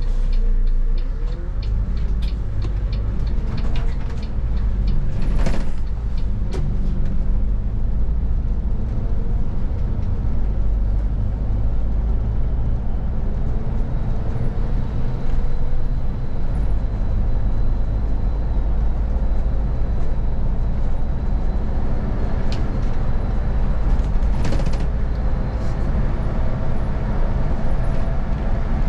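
Bus engine and road noise heard from the driver's seat while driving, a steady low rumble. A run of quick regular clicks sounds in the first few seconds, and two short hisses come about five seconds in and near the end.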